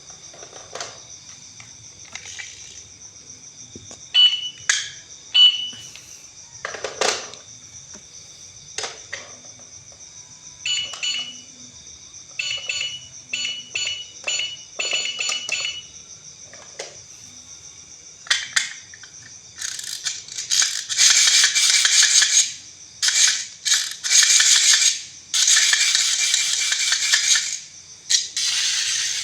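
Plastic toys and their packaging being handled: scattered clicks, some with short electronic beeps, then loud crinkling of plastic wrapping in repeated bursts through the last ten seconds.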